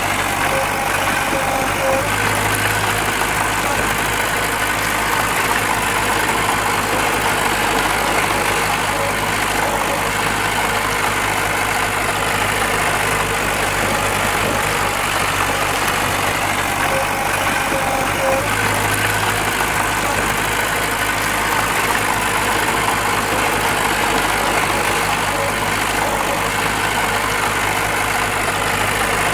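Diesel engine of heavy earthmoving machinery running steadily, with a low even drone and no sudden knocks.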